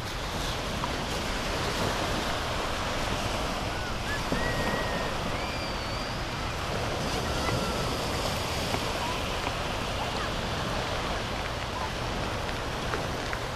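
Steady surf washing up onto a sandy beach, with wind on the microphone.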